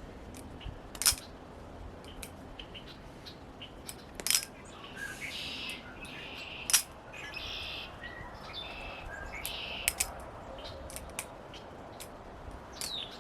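Balisong (butterfly knife) being flipped: sharp metallic clicks of its handles snapping against the blade, a few spread apart, two close together about ten seconds in. Birds chirp in the background.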